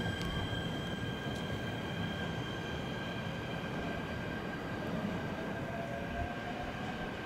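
JR East E129 series electric train pulling away from the platform, with a steady high whine over the low rumble of the running gear, both thinning as it moves off. A faint rising tone joins about five seconds in.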